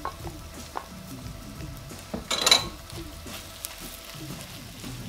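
Potato chunks frying in very hot oil in a wok, sizzling steadily while a wooden spatula stirs and scrapes them through scrambled egg and onions, with small clicks of the spatula on the pan. A brief, louder burst of noise comes about halfway through.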